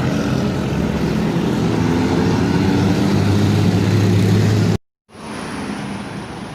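A motor vehicle's engine running steadily close by, a low hum with even overtones over street noise, growing stronger about three seconds in. The sound cuts off abruptly near the end, and a quieter street din with a faint high whine follows.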